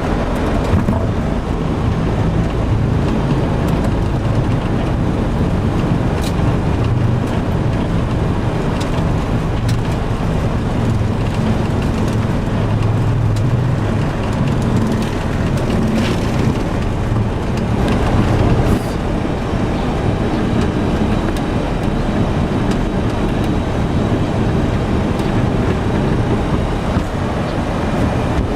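Steady, loud rumble of a Boeing 737 cockpit on the ground after landing: engine and rolling noise. It eases slightly about 19 seconds in.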